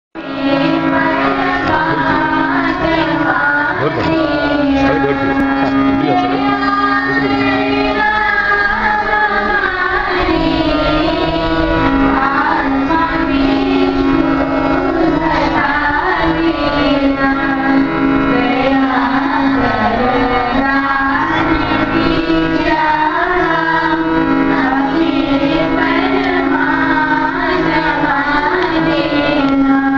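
Group of children's voices singing a song in Indian style over a steady held drone note.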